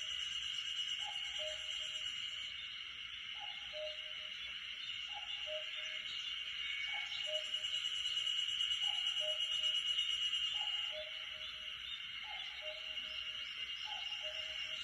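Common cuckoo repeating its two-note falling 'cuck-oo' call about every two seconds. Behind it runs a steady high-pitched forest background that drops back a little about eleven seconds in.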